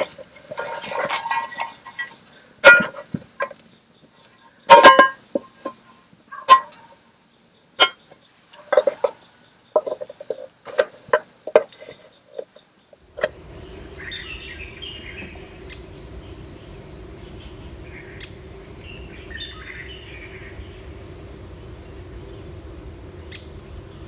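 Insects trilling steadily throughout. Over the first half there is a string of sharp knocks and clacks. About halfway through the sound changes abruptly to a steady low rumble under the insect trill.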